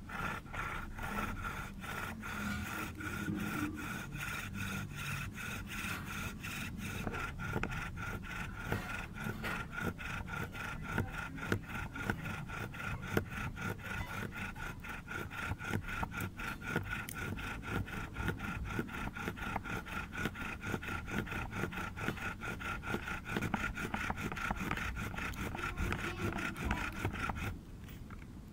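Bow drill grinding a European white elm spindle back and forth in an elm hearth board, with a steady high whine over fast rhythmic rubbing strokes. The socket is smoking as the friction builds heat. It stops abruptly near the end.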